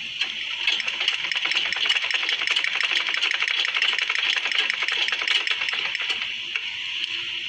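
Sewing machine running and stitching a seam through garment fabric: a fast, even clatter of needle strokes that starts just after the beginning and stops about six seconds in.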